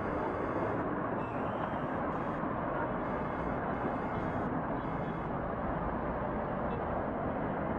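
Steady engine and road noise inside a moving coach bus.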